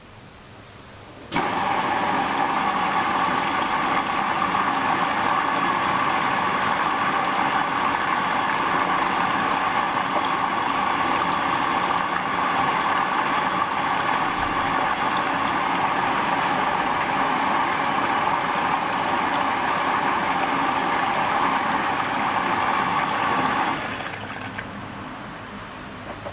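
Hoover washing machine making a steady, loud rushing noise that starts suddenly about a second in and cuts off suddenly near the end.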